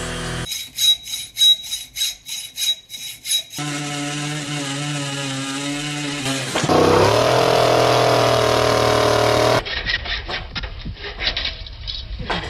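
A run of saw sounds. First rapid rhythmic sawing strokes, then a chainsaw running that revs up louder about seven seconds in, then a hacksaw cutting a metal tube in irregular strokes near the end.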